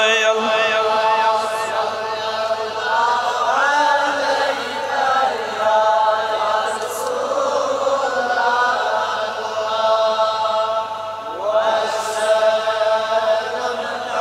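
Men's voices chanting a Kashmiri devotional naat in long-held, wavering, melismatic notes, with a faint steady hum beneath.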